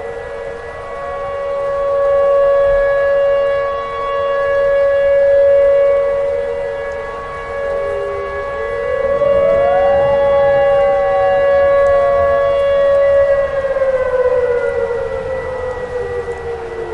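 Tornado warning siren wailing: a steady tone joined by a second pitch that rises sharply and then slowly falls, the loudness swelling and fading.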